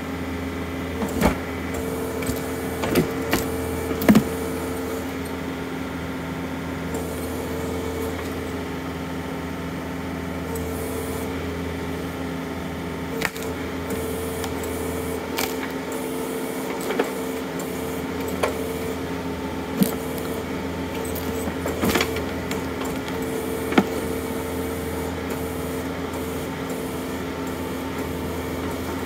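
John Deere compact utility tractor's diesel engine running steadily under backhoe work, with a higher tone that comes and goes. Scattered sharp cracks and knocks come as the backhoe bucket levers a tree stump and its roots out of the frozen ground.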